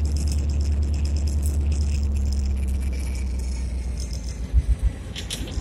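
Inside the cab of an EMD SD24 diesel locomotive: the low, steady throb of its turbocharged 16-cylinder EMD 567 engine, with cab fittings rattling. The throb fades about three seconds in, and a few low thumps come near the end.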